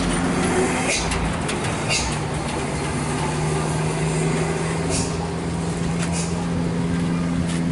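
An engine idling steadily, with indistinct voices and a few sharp clicks.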